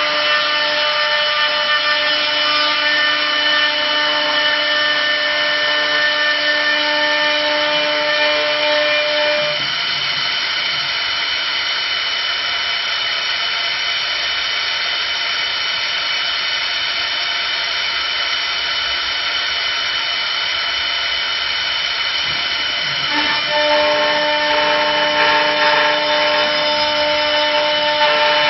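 Automatic two-blade wood lathe running as it turns a wooden spindle: a steady machine whine layered over a hiss. About ten seconds in the whine drops out and the sound gets slightly quieter for about thirteen seconds, then the whine comes back.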